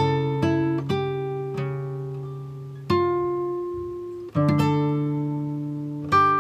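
Background music: acoustic guitar playing slow plucked notes and strummed chords that ring out and fade, with fresh strums about three seconds in, again about a second later, and near the end.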